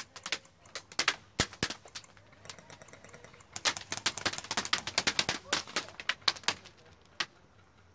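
Airsoft guns firing in several rapid bursts of sharp snapping shots with short gaps between them, then a single shot near the end.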